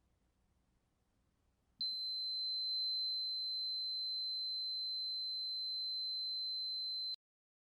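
A 5 V electronic buzzer in a transistor water-level alarm sounding one steady high-pitched tone: the alarm signal that the water has reached the electrode level. It starts suddenly about two seconds in and cuts off abruptly about five seconds later.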